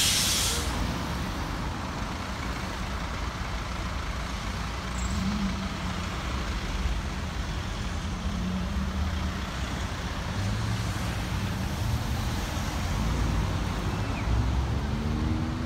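Road traffic at a busy junction, with buses and cars running and pulling away: a steady low engine rumble throughout. A bus's air brakes let out a short sharp hiss at the very start.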